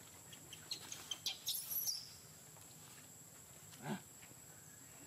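A quick run of short, high-pitched animal chirps and squeaks about a second in, then one short lower call near four seconds.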